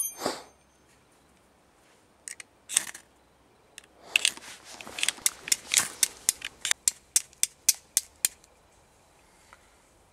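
Steel striker struck against flint to throw sparks onto char cloth. There are a few scattered strikes, then a quick run of about fifteen sharp metallic strikes, roughly three or four a second, from about four seconds in. The run stops just past eight seconds.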